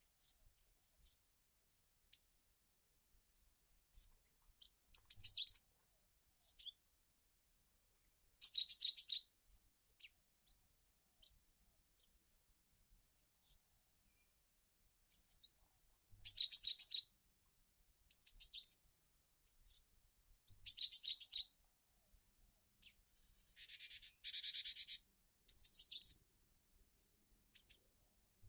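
Cinereous tit (gelatik batu) calling: short, bright chirping phrases with quick falling notes, repeated every two to three seconds, and a harsh buzzing call a few seconds before the end.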